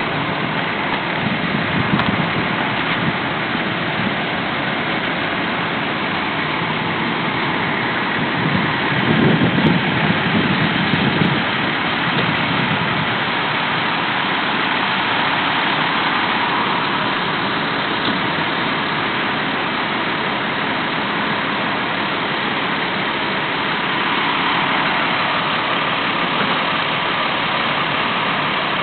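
Vehicle engines idling with steady street noise, and a louder low rumble for about two seconds, nine seconds in.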